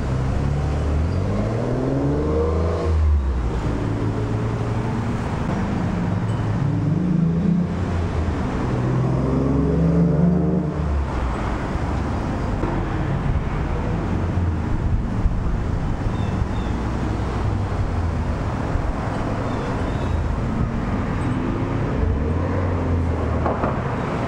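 Exhaust of a Mercury Cougar with a Trubendz catback quieted by a Dynomax Super Turbo muffler, as the car pulls away and accelerates through the gears in several rising revs. It is heard again accelerating near the end as the car comes back.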